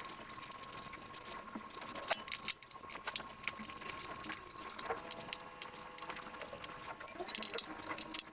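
Light metallic clicks and rattles of screws being undone and handled on a shallow-well water pump, with irregular small knocks, over a faint steady high tone.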